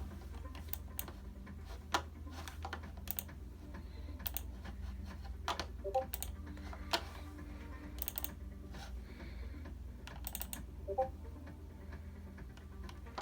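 Computer keyboard typing: scattered, irregular keystroke clicks, some in quick clusters, over a low steady hum.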